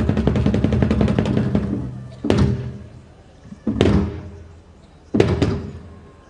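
Drum ensemble playing a fast roll that fades out about two seconds in, then three single heavy drum strikes about a second and a half apart, each ringing out and dying away.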